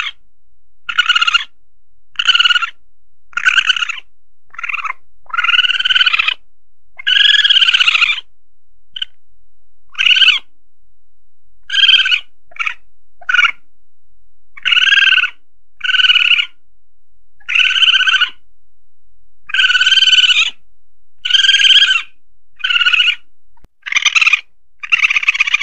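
Asian palm civet (musang pandan) calls played as a hunting lure: a string of about twenty short pitched calls, each under a second and a half, some arching up and down in pitch, with gaps of about a second between them. A faint steady hiss lies beneath.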